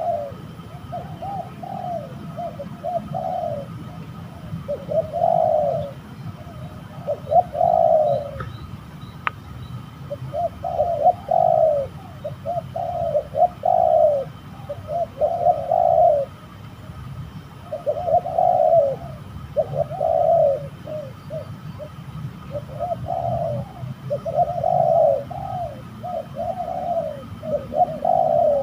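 Spotted doves (tekukur) cooing over and over, phrase after phrase of low cooing notes with short pauses between.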